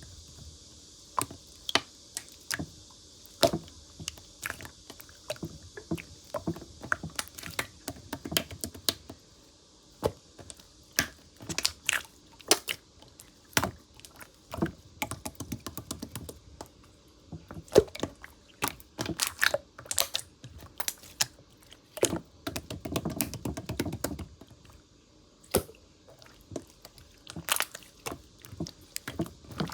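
Aged clear slime, now cloudy, being squeezed and worked by hand, giving irregular sharp clicks and pops with a denser run of crackling about two-thirds of the way through.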